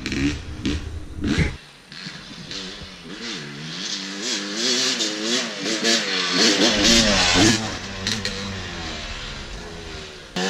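For the first second and a half, a dirt bike engine runs up close. Then a two-stroke Yamaha YZ250 dirt bike is heard riding toward the camera, its engine revving up and down over and over as the rider works the throttle. It gets louder as the bike comes closer.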